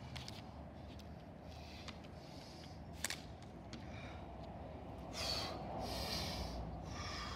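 A man breathing hard from exertion mid-workout, with a few loud, breathy exhalations in the second half. A single sharp click about three seconds in.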